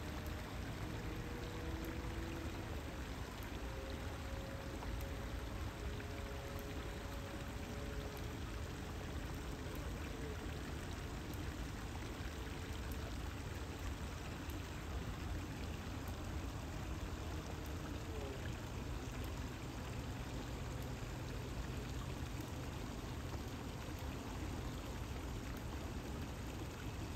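Steady rushing of flowing water, unbroken throughout.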